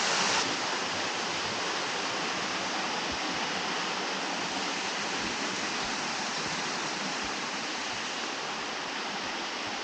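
Steady rushing of water falling at a small waterfall, an even hiss with no breaks; the highest part of the hiss drops slightly about half a second in.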